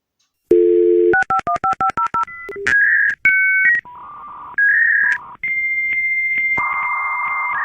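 Telephone dial tone, then a quick run of touch-tone dialing beeps, followed by a series of longer steady electronic phone-line tones at changing pitches.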